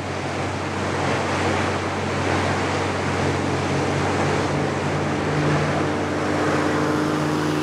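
Fishing boat engines running hard, with water rushing and splashing past the hulls at speed: a steady low drone under a wash of spray. A little past two-thirds through, a higher steady engine drone joins in as a floatplane skims across the water on its floats.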